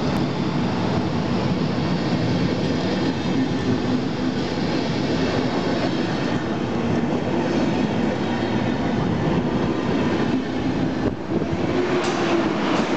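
A departing passenger train of ex-InterRegio coaches, hauled by a DB class 112 electric locomotive, rolls steadily past close by. The wheels rumble on the rails with a little clatter.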